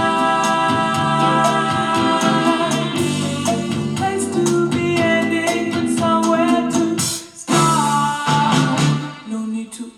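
A song with a singing voice, held chords and drum hits, played through the built-in speakers of a Philips MLED920 TV. The music drops out briefly past the seventh second, then carries on.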